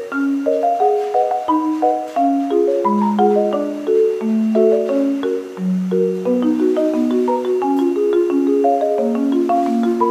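Background music: a quick, light melody of short struck notes on mallet percussion, marimba-like.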